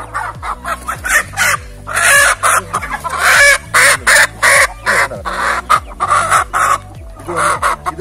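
A flock of Indian country chickens clucking and calling, with a rooster crowing in the loudest stretch a few seconds in. Faint background music with a repeating beat runs underneath.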